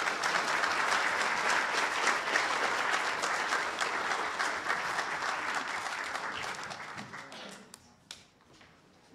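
Audience applauding, a dense patter of clapping that dies away about seven or eight seconds in.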